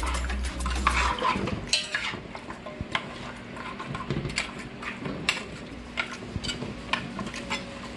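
A metal spoon clinking and scraping against a metal cooking pot as chunks of raw marinated beef are stirred and turned, with irregular taps and clicks.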